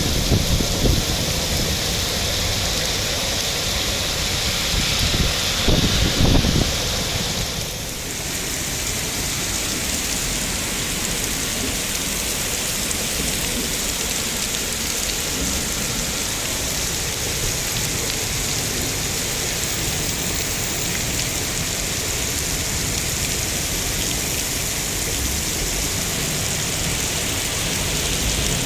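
Heavy rain falling steadily, a continuous hiss. There are a few low rumbling surges in the first several seconds, and the sound shifts slightly about eight seconds in.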